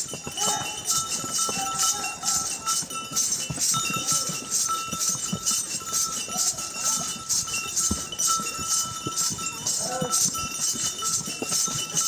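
A ridden horse's hooves clip-clopping, with the bells on its harness jingling in time with its steps, about three jingles a second, and a steady ringing beneath.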